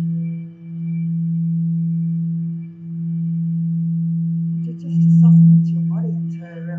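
Singing bowl sustaining one low, almost pure tone, pulsing in level about every two seconds, with a louder swell about five seconds in.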